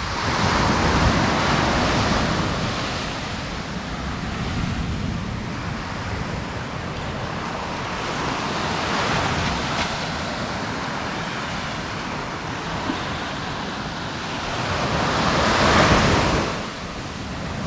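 Sea surf: waves breaking and washing up the beach, swelling louder a few times, most strongly near the end.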